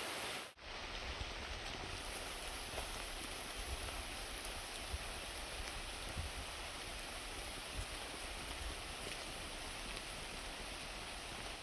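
Steady rain falling, an even hiss with scattered drop patter.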